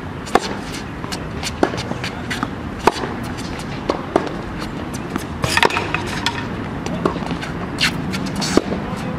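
Tennis rally on a hard court: rackets striking the ball and the ball bouncing, a sharp pop roughly every second and a half over steady background noise.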